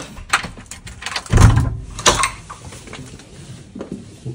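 Door handle and latch clicking, then a heavy thump about a second and a half in as the door is pushed open, followed by another sharp click.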